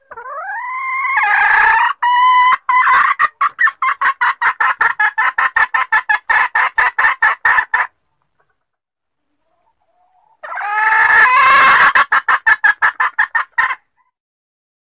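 Female red junglefowl calling. A drawn-out rising note breaks into a rapid run of clucks, about five a second, and after a pause a shorter second bout of clucks follows. It is a hen's call used as a lure to draw in wild junglefowl cocks.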